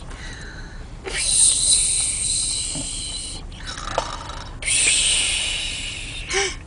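A young child snoring while asleep: two long, hissing snores of about two seconds each, one starting about a second in and the other past the middle.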